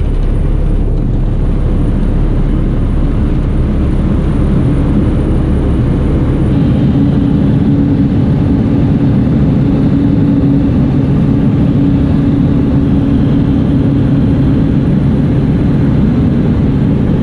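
Single-engine propeller plane running at takeoff power: a loud, steady engine-and-propeller drone through the takeoff roll and climb-out.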